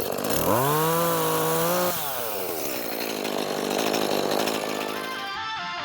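A small two-stroke chainsaw revs up quickly, holds at high speed for about two seconds, then its pitch drops away. Guitar music comes in near the end.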